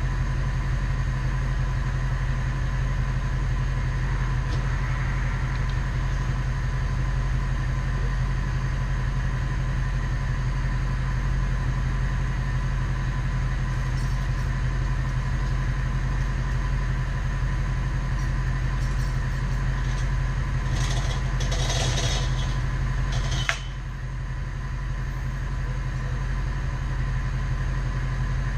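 Bucket truck's engine running steadily with a constant hum. About three-quarters through come a few sharp metallic clanks and a short squeal, after which the sound drops suddenly and slowly builds back up.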